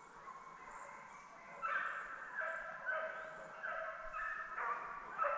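Deer-drive hounds baying, a string of drawn-out bawls that grow stronger and come one after another about a second and a half in. A short knock near the end.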